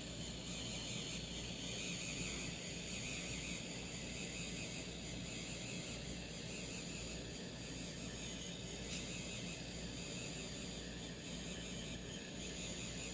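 A 3D pen's filament-feed motor running steadily as it extrudes plastic, heard as an even low hum with a hiss above it.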